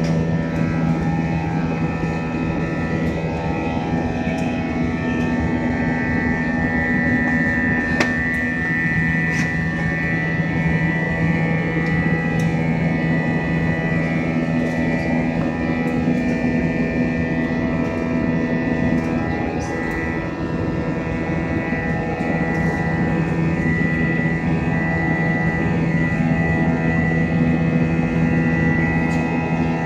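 Airliner cabin noise: a steady drone of jet engines and rushing airflow heard from inside the cabin, with a few steady humming tones over it.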